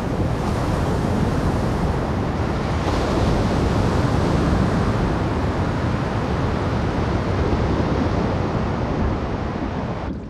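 Stormy open sea: big waves churning and breaking, with wind, a loud, steady rush. The higher hiss drops away abruptly just before the end.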